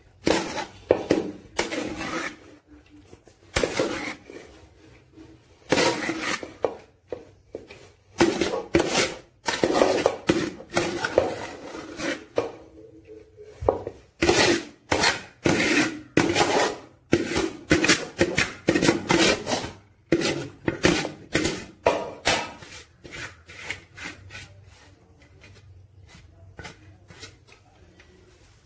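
Metal ladle scraping cooked rice out of one aluminium pot and spreading it over another as the top rice layer of a chicken biryani is laid. A long run of quick, irregular scraping and clinking strokes against the metal, thinning out and growing fainter near the end.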